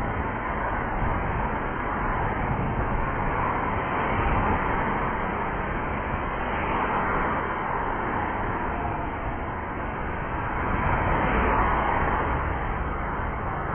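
Road traffic: cars driving past one after another, their tyre and engine noise swelling and fading as each goes by.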